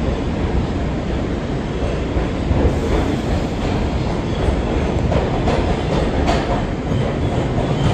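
R142 subway train running along the track, heard from aboard: a steady loud rumble, with sharp clicks of the wheels over rail joints from about halfway.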